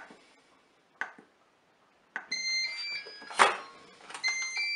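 Moulinex Cookeo multicooker playing its electronic chime of stepped beeping notes, twice, as its pressure lid is unlocked and opened at the end of cooking. A click comes about a second in, and a short loud clunk of the lid falls between the two chimes.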